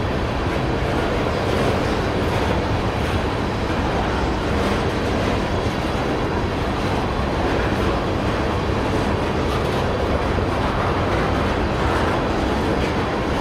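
Tank cars of a long oil train rolling past on the rails: a steady rumble of steel wheels and cars, even in level throughout.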